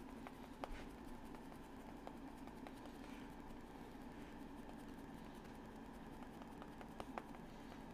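Quiet room tone: a faint steady hum with a few scattered light clicks.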